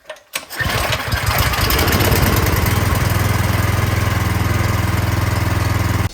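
26-inch Troy-Bilt snowblower's single-cylinder four-stroke engine starting on the first try after priming without choke, then running steadily at speed on its freshly cleaned carburetor.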